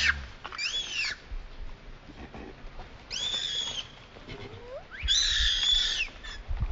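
Infant macaque giving high-pitched distress cries: three screaming calls, the first arching up and down about half a second in, the next about three seconds in, and the loudest about five seconds in.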